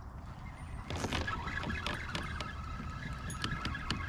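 A spinning reel being cranked to bring in line, with scattered clicks and knocks of rod handling against the kayak.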